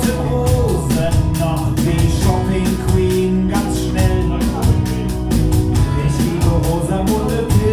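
Live band music: a drum kit keeps a steady beat under guitar and bass, with a sung vocal melody over it.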